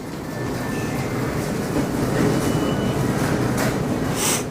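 Shopping cart rolling across a store floor, its wheels rattling steadily, with a few short squeaks and two sharp clacks near the end.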